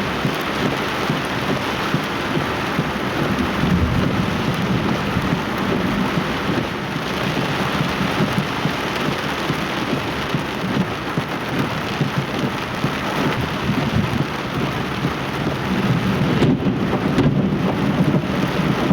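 Heavy thunderstorm rain pouring steadily, with rolling thunder rumbling underneath that swells about four seconds in and again near the end.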